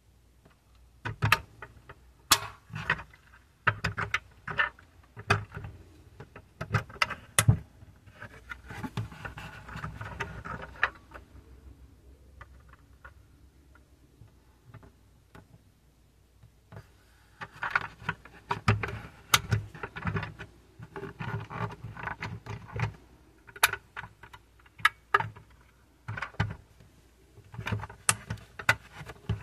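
Handling noise from a 1/24 die-cast metal model car: irregular clicks, taps and light rattles as its opening doors and body are worked by hand, with a quieter stretch in the middle.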